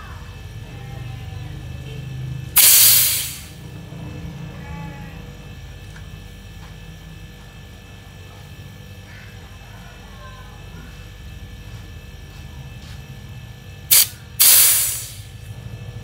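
Two loud bursts of gas hissing out through refrigerator tubing during a flush, each about a second long, one near the start and one near the end, the second just after a short click. A steady low hum runs underneath. The oil being pushed out is very thick and comes out with difficulty.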